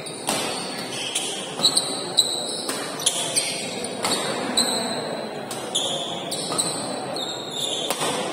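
Badminton doubles rally: rackets striking the shuttlecock about a dozen times at an uneven pace, with shoes squeaking on the court between shots. Spectators chatter underneath.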